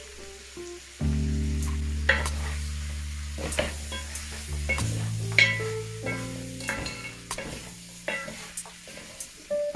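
Oxtail sizzling as it browns in a pot on high heat, with a spoon stirring and scraping against the pot in sharp clicks and scrapes. Background music with held bass notes plays alongside and gets louder about a second in.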